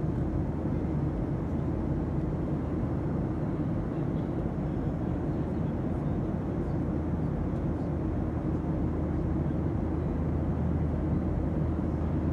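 Steady drone inside an airliner's passenger cabin: engine and air-flow noise with a low hum underneath, holding an even level.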